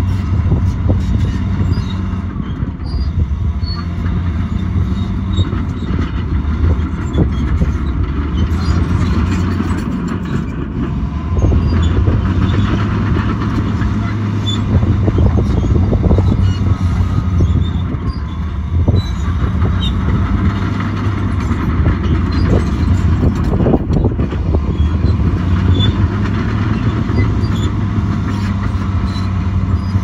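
Bulldozer's diesel engine running steadily under load, with occasional knocks and clatter of stone.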